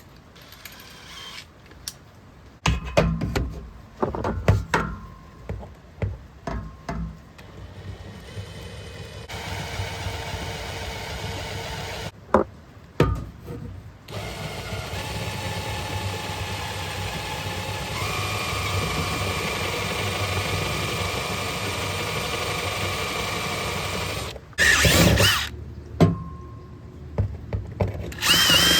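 Electric drill with a 1/4-inch bit running steadily as it drills out the rivet hole in an aluminum boat hull, its pitch stepping up partway through. Clatter and knocks of tools being handled come before it, and louder bursts follow near the end.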